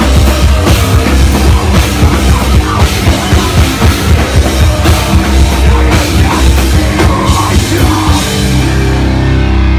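Live heavy rock band playing loud: pounding drums under distorted guitars and bass. About eight seconds in the drumming stops and a low chord is left ringing.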